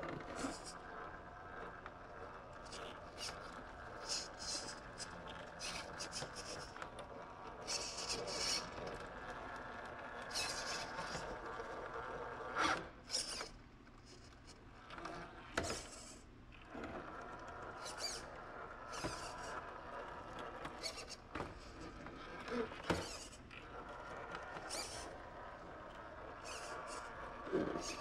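Redcat Ascent RC rock crawler with a Hobbywing 1800kv brushless motor crawling slowly over rocks and logs: a steady motor and drivetrain whine, with tyres scraping on rock and a few sharp knocks as it climbs.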